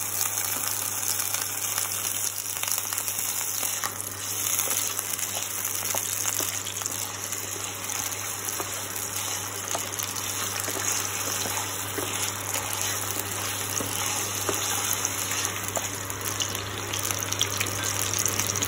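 Raw potato cubes frying in hot oil in a kadai: a steady sizzle with scattered crackles and pops.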